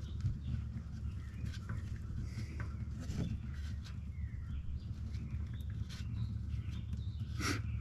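An oil filter being unscrewed by hand: scattered light clicks and scrapes, with a sharper click near the end, over a low steady hum.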